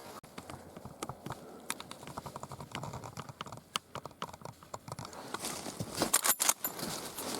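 A quick, irregular run of small clicks, knocks and crinkles, louder from about five seconds in.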